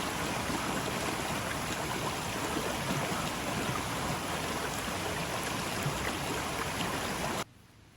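Steady rush of running water, which cuts off abruptly near the end.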